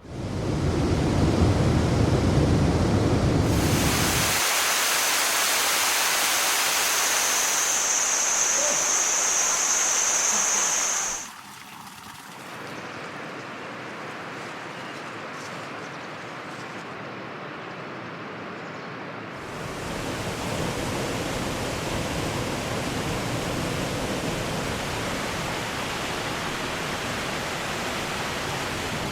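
Waterfalls: a run of separate recordings of falling water, a steady rushing noise that changes abruptly about four, eleven and nineteen seconds in. It is deep and rumbling at first, then a brighter hiss, then quieter and thinner, then fuller again.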